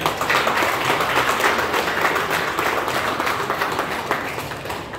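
A small crowd applauding, many hands clapping at once; it starts abruptly, is loudest in the first two seconds, and tapers off toward the end.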